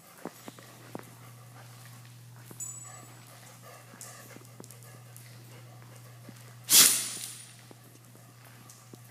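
Dogs moving about a playroom: scattered light clicks and taps, and one loud, short hissing burst from a dog about two-thirds of the way through, over a steady low hum.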